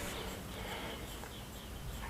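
Faint background chirping: a high, short pulse repeated several times a second, over a low steady hum.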